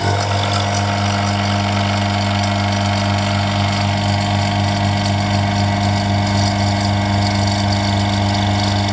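Electric vacuum pump running with a steady, loud hum as it pulls a vacuum on a bell-jar chamber.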